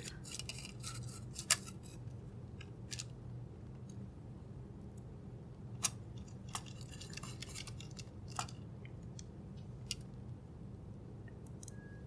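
Small screwdriver driving tiny screws into a keyboard's bottom plate: scattered light clicks and short bursts of fine scraping ticks from the driver tip and screws, over a steady low hum.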